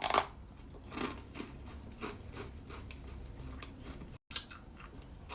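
Crunching into a freeze-dried sweet: a loud crisp crunch at the start, then fainter crunches about a second apart as it is chewed.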